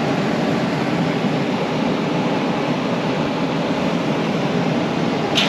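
HVAC blower fan running with a steady, loud rush of air, with a brief sharp sound near the end.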